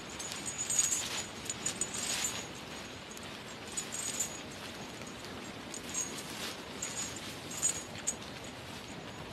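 Footsteps and movement crunching through dry fallen leaves: irregular crackling rustles, busiest in the first couple of seconds, over a steady hiss.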